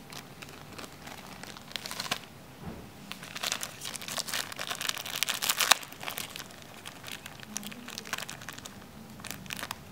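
Thin clear plastic bag of cotton swabs crinkling in irregular bursts as hands handle it and open it, loudest in the middle stretch.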